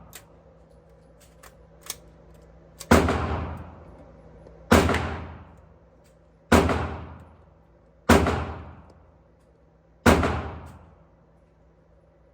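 Five single shots from a Colt AR-15 rifle, fired one at a time about every two seconds, each ringing out with a long echo. A few faint clicks come before the first shot.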